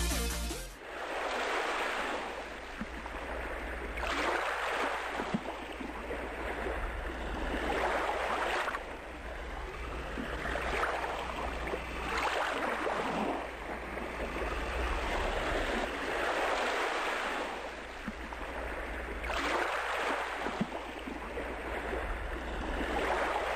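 Sea water sloshing and splashing around a boat, swelling every few seconds over a steady low rumble. Electronic music cuts off in the first second.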